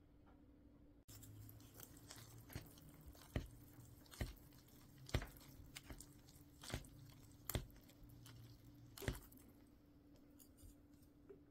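Wooden chopsticks stirring instant noodles in a paper cup of broth, with sharp taps about once a second where they knock against the cup. A faint steady hum runs underneath.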